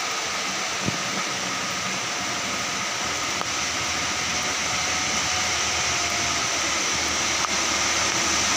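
Heavy rain hissing steadily on a wet mountain road, with the engines of a convoy of Elf minibuses climbing toward the microphone. The sound grows slightly louder toward the end as they come closer.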